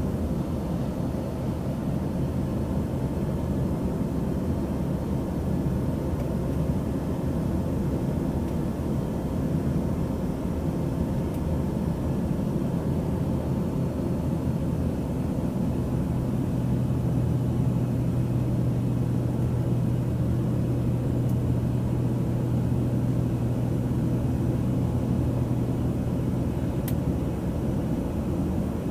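Airplane cabin noise in flight: a steady low rumble of engines and rushing air. A low, steady hum grows stronger about halfway through.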